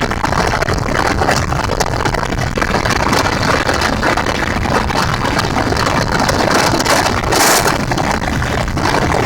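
Gyrocopter engine running steadily under loud wind rush on the microphone, with a brief stronger gust about seven and a half seconds in.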